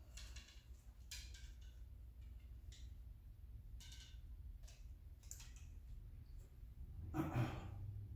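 Scattered light clicks and taps as a compound bow and its handheld release aid are handled and readied at the string, over a low steady hum. About seven seconds in a short breathy exhale is the loudest sound.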